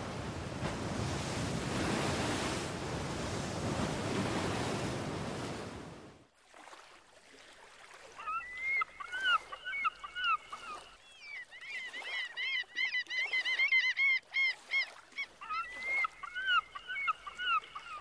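Rushing surf-like noise that cuts off about six seconds in, followed from about eight seconds by a flock of birds calling: many short, rising-and-falling cries overlapping.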